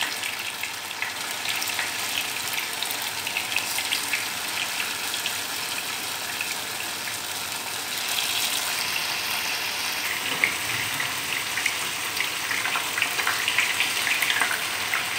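Tofu cubes frying in hot oil in a pan: a steady sizzle with small crackling spits, getting a little louder about halfway through.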